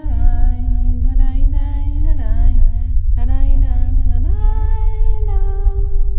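Film soundtrack: a wordless voice humming a slow melody of a few gliding notes, rising to a higher held note about four seconds in, over a loud, deep, steady drone.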